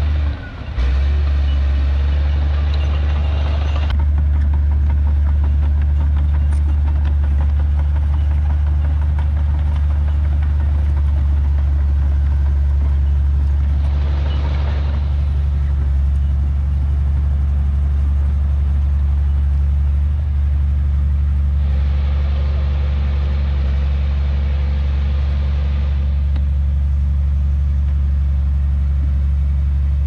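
Bulldozer's heavy diesel engine running with a deep, steady drone. The engine noise grows louder and harsher in stretches: near the start, briefly around the middle, and for a few seconds about two-thirds through. There is a short drop in level about half a second in.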